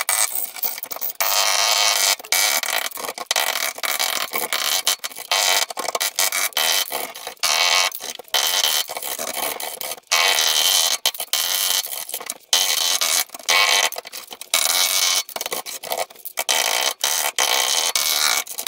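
A scraper chipping and scraping old underbody seal off the underside of a classic Mini's steel boot floor: harsh scraping, stop-start with many short breaks.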